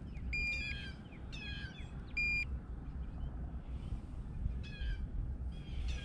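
Handheld digital fish scale beeping twice, a short steady tone about half a second in and another about two seconds in, as it registers a bass's weight. Birds call repeatedly in the background.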